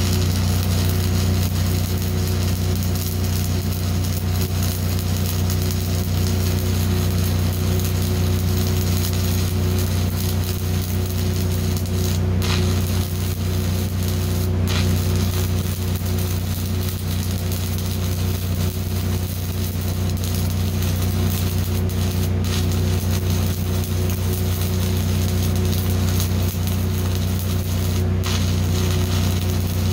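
Stick (shielded metal arc) welding: the electrode arc hisses and crackles steadily, with a low hum underneath, dipping briefly a few times.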